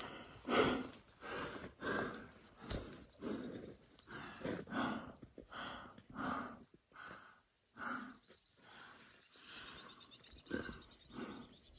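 A person panting hard, out of breath from a strenuous uphill hike: a steady run of heavy breaths, in and out, about one every three-quarters of a second.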